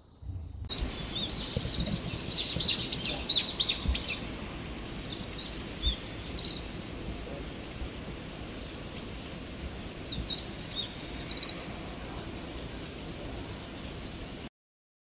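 Small birds chirping in quick bursts over a steady outdoor background hiss: a dense bout in the first few seconds, a short one in the middle and another later on. The sound cuts off abruptly near the end.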